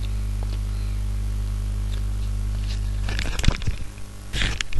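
Steady electrical mains hum, with a buzz of evenly spaced overtones, picked up in the recording chain. About three seconds in, a few crackling clicks break in and the hum drops away, with a louder burst of crackles near the end.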